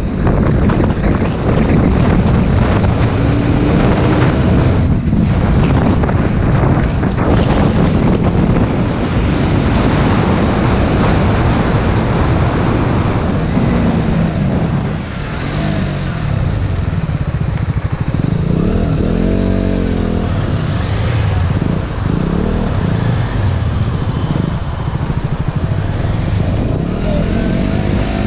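Motorcycle engine running on the move, its note rising and falling with the throttle, under a heavy rush of wind on the microphone.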